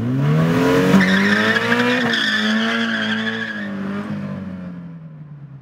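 A car engine revving up and holding high revs while the tyres squeal in a slide. The squeal fades away over the last couple of seconds.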